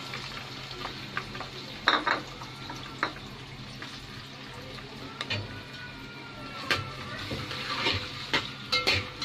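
Pieces of bitter gourd sizzling in hot oil in a metal pot, a steady hiss. A few sharp knocks of a spatula against the pot as they are stirred.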